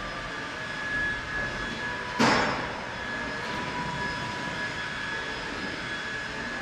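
Heavy-duty tow truck running steadily with a constant high whine. About two seconds in comes one short, sharp burst of hiss that fades within half a second.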